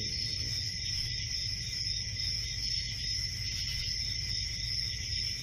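Night ambience of crickets chirping in a steady, unbroken high chorus over a low steady rumble.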